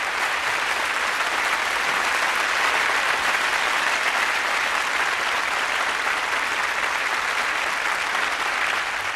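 Sustained applause, a steady dense clatter of many hands that begins to fade near the end.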